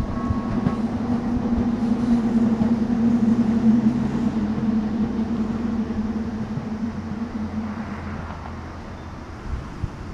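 A train passing a railway level crossing: a steady low running hum that fades over the last few seconds. The crossing's warning bell stops about a second in.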